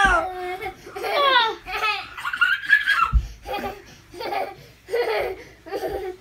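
Children laughing in a run of short bursts during playful wrestling, with a single thump about three seconds in.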